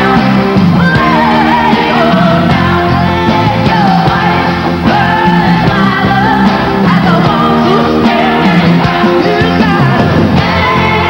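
Live band music with singing, loud and steady, the voice held and wavering over sustained chords.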